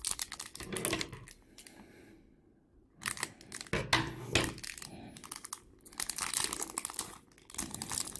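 A foil trading-card pack wrapper crinkling and tearing as it is opened by hand, in bursts with a short pause about two seconds in.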